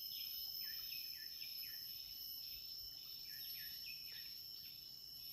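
Field insects shrilling steadily in two high tones, with a short falling chirp repeated about twice a second.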